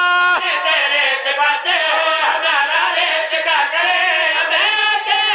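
Men's voices singing a line of devotional verse in a melodic chanted recitation, drawing out long held notes.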